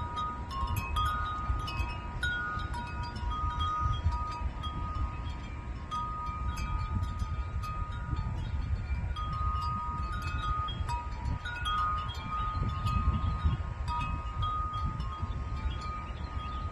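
Wind chimes ringing in a breeze, several tubes of different pitch struck at irregular moments, each note ringing on and overlapping the next. A low rumble that rises and falls runs underneath.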